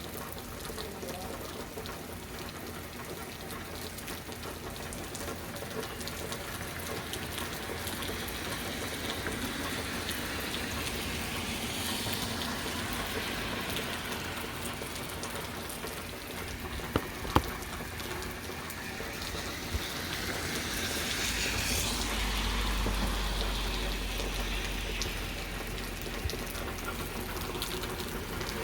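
Heavy rain falling steadily, swelling louder twice, with two sharp clicks a little past halfway and a low rumble coming in about two-thirds through.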